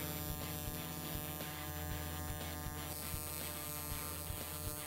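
Steady buzz of an AC TIG welding arc on aluminum from a Miller Dynasty welder running at about 100 amps, with light, irregular crackles.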